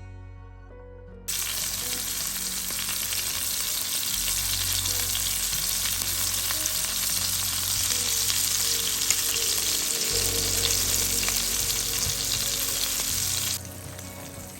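Floured spruce grouse pieces frying in butter in a pan: a loud, steady sizzle that cuts in suddenly about a second in and drops away sharply near the end. Soft music plays before the sizzle starts.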